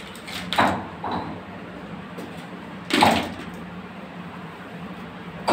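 Plastic tile-leveling caps knocking as they are dropped and set down on a ceramic floor tile: a few short, sharp knocks, the loudest about three seconds in.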